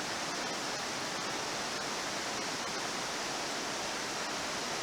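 Steady rush of fast-flowing river current, an even noise with no breaks.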